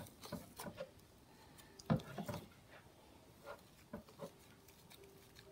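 Freshly glued fluffy slime being mixed, giving irregular soft squishes and sticky clicks, the loudest about two seconds in.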